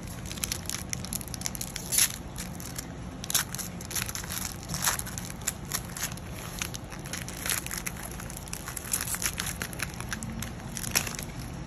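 Foil wrapper of a Pokémon trading-card booster pack crinkling and crackling as it is handled and torn open, with irregular sharp crackles.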